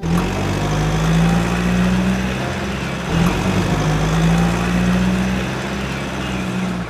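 Truck engine running steadily, a continuous low hum with a low rumble beneath, swelling slightly about three seconds in; it starts suddenly and cuts off suddenly, like a sound effect laid over the picture.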